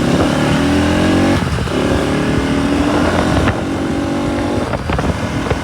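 Bajaj Pulsar NS200's single-cylinder engine accelerating hard through the gears: its pitch climbs, drops at a gear change about a second and a half in, climbs again, and drops at further shifts around three and a half and five seconds in.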